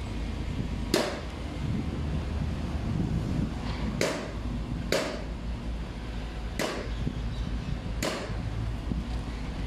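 Five sharp knocks at uneven intervals from cladding work on the building, over a steady low rumble of wind on the microphone.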